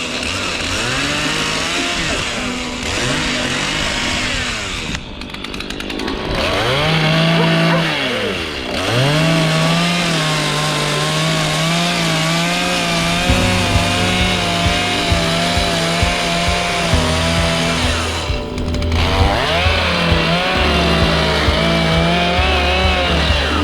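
Chainsaw running and cutting wood, its engine pitch rising and falling repeatedly as it revs, with a brief drop about five seconds in and again near the end; background music plays along with it.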